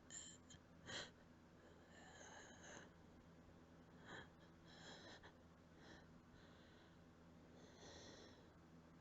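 A person breathing faintly and unevenly, with a few short gasping breaths: running out of breath.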